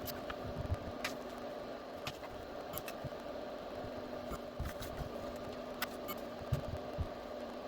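Scattered light clicks and soft taps from small parts being handled, over a steady background hum.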